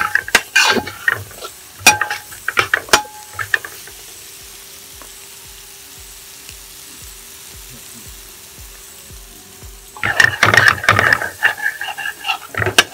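Metal ladle stirring and scraping a thick onion-tomato biriyani masala in a large metal pot, with clanks against the pot and the masala sizzling. The stirring is busy at first, drops to a quieter stretch with a faint steady hum, and picks up again near the end.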